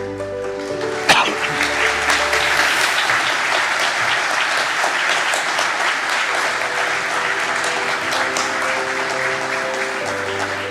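Audience applause over slow instrumental music with sustained chords. The clapping starts with a sharp knock about a second in, then carries on steadily and thins near the end while the music plays on.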